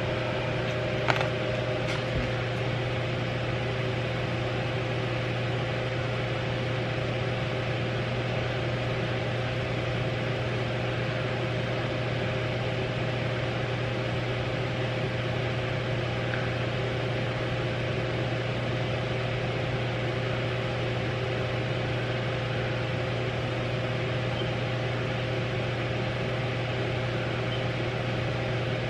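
A steady mechanical hum over an even hiss, with a sharp click about a second in and a lighter one a second later.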